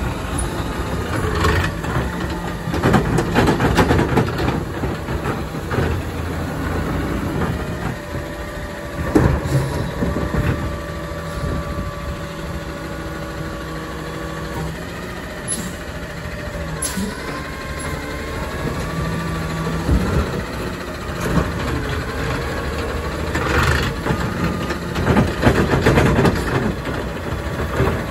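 2024 Autocar McNeilus ZR automated side-loader garbage truck working its arm: the engine runs and rises under load while the hydraulics whine, as the arm lifts, dumps and sets down wheeled garbage carts. Several sharp knocks and bangs come from the carts and the arm.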